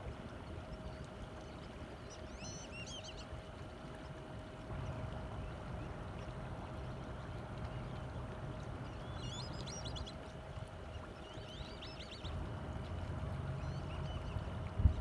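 Boat motor running steadily with a low rumble and a thin steady hum, while small birds chirp in short runs of rapid high notes four times.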